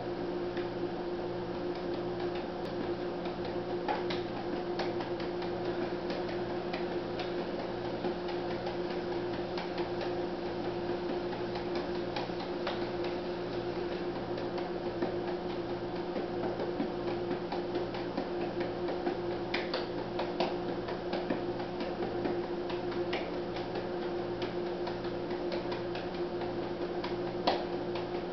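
A steady electrical hum with a low, slowly pulsing throb, a little over one beat a second, under scattered faint light taps and ticks.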